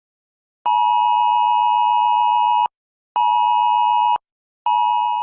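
Mobile phone sounding the Wireless Emergency Alert attention signal for a Hurricane Warning. It is a two-tone beep held for about two seconds, then two one-second beeps, each after a short gap.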